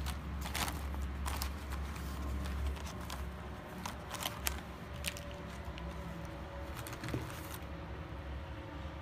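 Handling noise from a fabric pouch of plastic paint markers: scattered light clicks and rustles at irregular moments, over a low steady hum that fades out about three seconds in.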